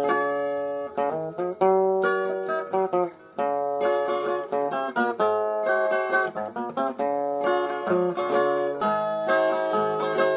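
Viola, the Brazilian steel-string folk guitar, playing an instrumental introduction: a plucked melody over strummed chords, a run of clear notes leading into the song.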